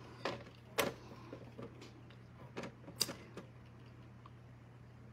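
A few light knocks and clicks as a glass bottle and paintbrush are handled and repositioned, over a steady low hum. The knocks stop about three and a half seconds in.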